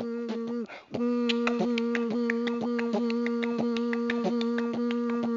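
Beatboxing: one voice holds a steady hummed note while the mouth makes sharp clicks and pops over it at the same time, a few a second. The note breaks off briefly just under a second in, then resumes.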